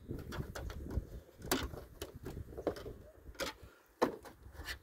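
Scattered clicks and knocks of a plastic flat-screen TV back cover being handled and pried apart, over a low rumble.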